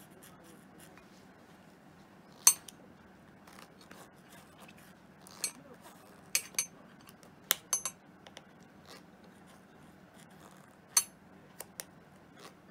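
Sharp metal clicks and light scraping of a small pick working around the rim of a motorcycle mirror's chrome housing, prying the rubber edge seal off the glass. About ten clicks come irregularly, several close together around the middle.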